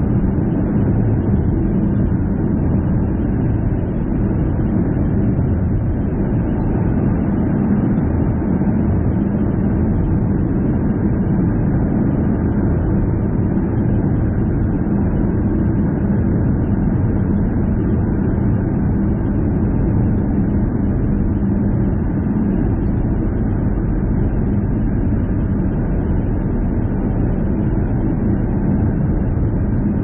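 Steady road and engine noise of a car being driven: an even low rumble with a faint constant hum and no changes in pace.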